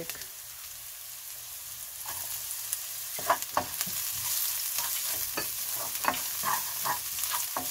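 Chopped onion, ginger and garlic sizzling in hot oil in a nonstick wok; the sizzle grows louder about two seconds in. A silicone spatula stirs and scrapes them in short strokes through the second half.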